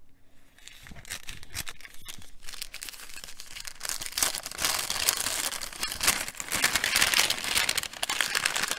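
A small paper gift bag crinkling and rustling as it is unfolded and opened by hand, faint at first and louder and busier in the second half.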